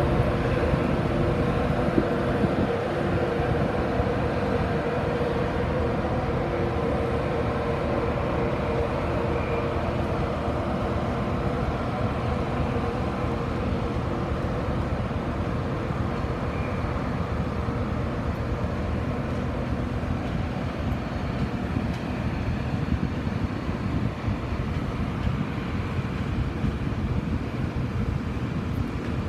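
InterCity 225 train, a Class 91 electric locomotive hauling Mark 4 coaches, moving slowly away: a steady rumble of wheels on rail with a humming tone from the locomotive that fades as it draws off.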